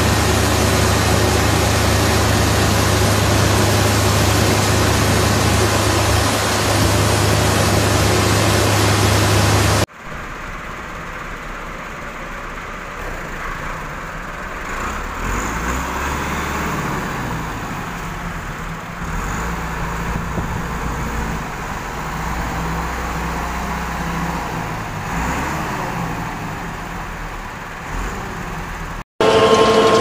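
Farm machinery running: a JCB wheel loader and feed mixer make a loud, steady noise with a low hum for about ten seconds, then after a sudden cut a tractor's engine runs more quietly, its pitch shifting up and down.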